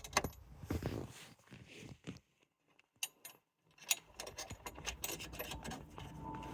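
Light metallic clinks and rattles of a spanner and metal fittings being handled, with scattered sharp clicks and a short lull in the middle.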